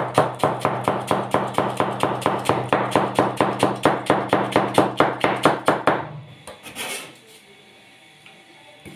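Kitchen knife chopping cabbage into fine shreds on a plastic cutting board, a fast, even run of about five chops a second that stops about six seconds in. A brief scrape follows about a second later.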